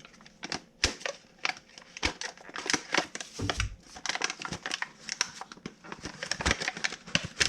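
Plastic packaging crinkling and crackling as it is handled, with many irregular small clicks and taps.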